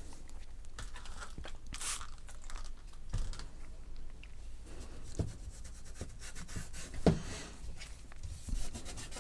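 Plastic home-computer case being handled and cleaned: scattered light knocks and rubbing, with a short scratchy rush about two seconds in.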